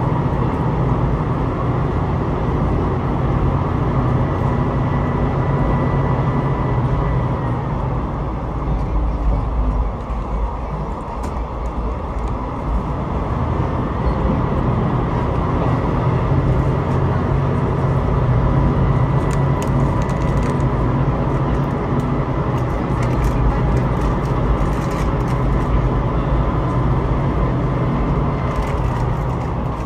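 Passenger train running along the line, heard from inside the car: a steady low rumble of wheels on rail with a faint steady whine. It eases briefly about ten seconds in, then builds again.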